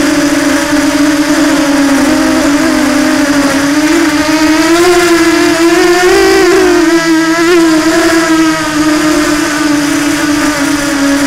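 Multirotor FPV drone's motors and propellers whining steadily in flight. Their pitch rises and wavers from about four seconds in, then settles back to a steady hum near the end.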